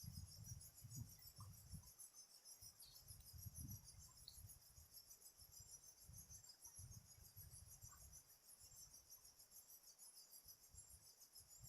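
Faint, steady high-pitched chirring of insects such as crickets, with irregular low rumbles underneath.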